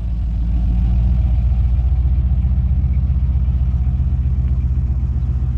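1950s Chevrolet pickup's engine rumbling with a fast, even exhaust pulse as the truck drives slowly past, swelling over the first second.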